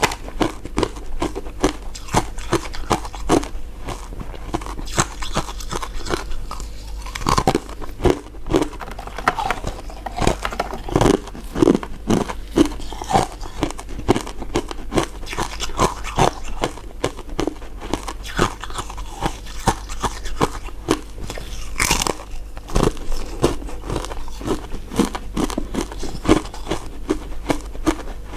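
Close-miked biting and chewing of crisp crystal ice dessert pieces: a dense, irregular run of sharp crunches and cracks, with one especially sharp crack late on.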